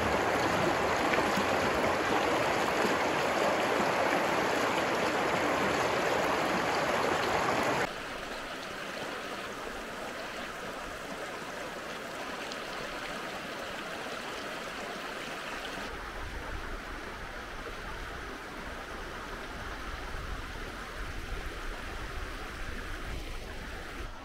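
Shallow Bright Angel Creek running over rocks in small riffles: a steady rush of water. About eight seconds in it drops quieter, and later a low rumble joins it.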